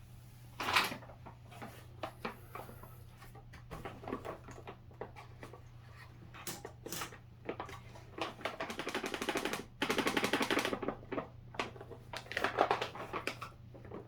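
Scattered sharp clicks and knocks of objects being handled, with a fast, dense run of ticking for a couple of seconds past the middle.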